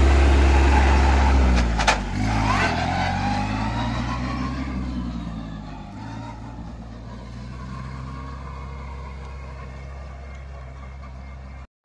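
Kubota A211N compact tractor's diesel engine running as it passes close by, its note dropping, then fading steadily as it drives off into the distance. A single sharp knock sounds just before two seconds in.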